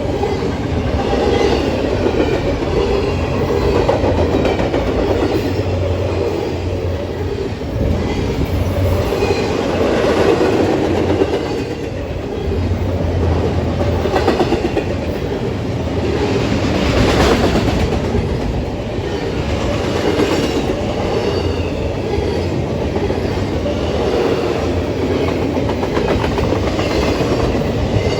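Norfolk Southern intermodal freight train's cars rolling past at close range, a steady rumble with the steel wheels clicking over rail joints again and again.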